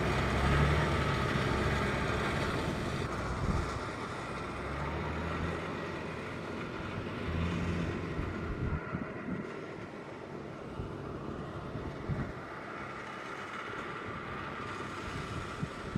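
Engine of a converted rice-harvester transport machine driving through a flooded, muddy paddy. The engine note swells and eases several times and grows fainter as the machine moves away.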